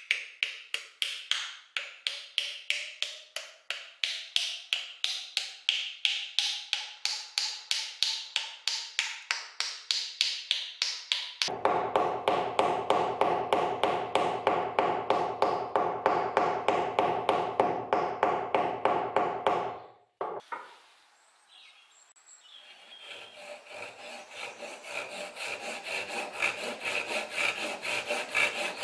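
A mallet tapping a glued wooden wedge into the eye of a steel hammer head to lock the wooden handle: quick, steady taps, a few a second, with a ringing tone that rises in pitch, turning deeper and fuller about halfway through. After a pause a handsaw starts cutting the protruding wooden wedge flush with the head in steady, even strokes.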